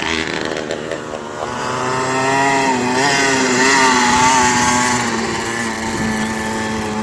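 KTM 65's small two-stroke single-cylinder engine running, its pitch and loudness rising about two seconds in and easing back down over the last few seconds.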